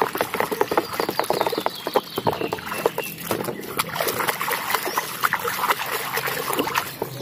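A hand sloshing and scrubbing a plastic toy gun in a tub of foamy, muddy water: quick, irregular splashes and wet slaps.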